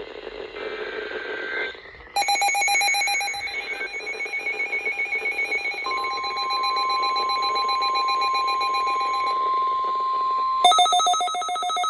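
Electronic alarm tones for a weather warning. A loud, rapidly pulsing alarm buzz starts about two seconds in. About halfway through, the steady single-pitch NOAA Weather Radio 1050 Hz warning alert tone sounds over it for about five seconds. Near the end a different rapidly pulsing ringing alarm takes over.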